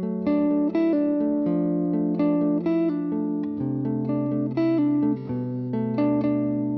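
Guitar playing picked, arpeggiated chords through a Stambecco effect preset, the notes ringing into one another. The bass note drops about halfway through and changes again near the end.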